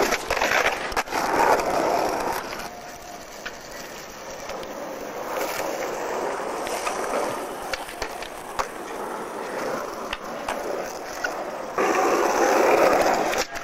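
Skateboard wheels rolling on asphalt, loudest as a board passes close near the start and again near the end, with scattered clicks and knocks from the board.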